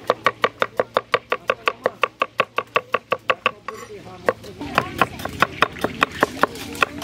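Kitchen knife chopping red onions on a wooden board: quick, even strokes about five or six a second, with a short pause a little past the middle before the chopping resumes.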